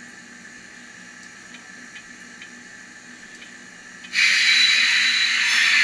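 Steam locomotive sound played by a LokSound decoder through the small speaker of an N scale BR 02 model. It is quiet with a faint hum and a few soft clicks, then a loud steam hiss starts abruptly about four seconds in and keeps going.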